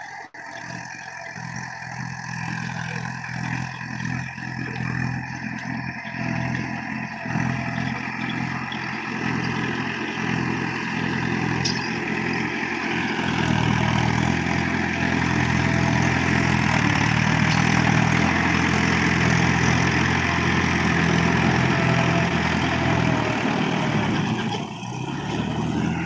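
Farm tractor's diesel engine running steadily as it works a flooded rice paddy, growing louder over the first half as it draws closer.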